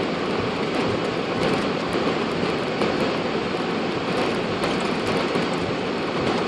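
Steady, even rushing noise on the flight deck of a Boeing 747-400 slowing on the runway after touchdown.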